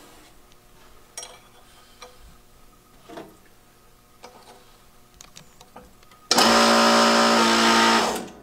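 Light clinks of steel parts being set up in the press, then the Sunnen BP10 hydraulic press's pump motor starts abruptly about six seconds in, runs loud and steady with a whine for about two seconds, and cuts off, driving the ram to press a bearing race into a Harley-Davidson connecting rod.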